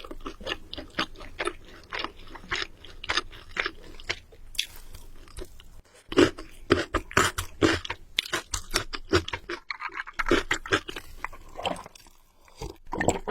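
A person chewing and biting crunchy food close to the microphone: a steady run of crisp crunches, louder after about six seconds.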